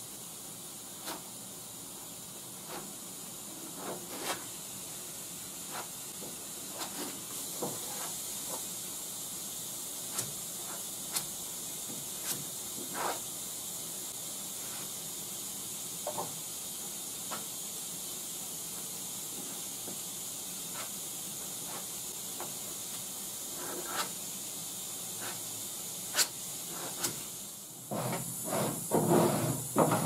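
A steady hiss with scattered light clicks and scrapes as body filler is spread. About two seconds before the end comes a quick run of rasping strokes: a cheese grater (Surform) blade shaving the partly cured body filler.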